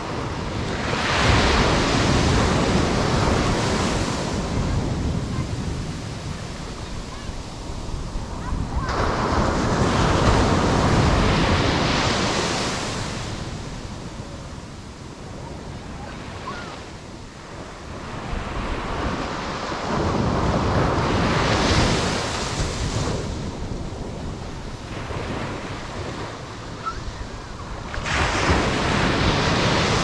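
Small Atlantic surf breaking at the shoreline and washing up the sand. It rises and falls in surges several seconds apart, the strongest about a second in, around nine to thirteen seconds, about twenty-one seconds and near the end.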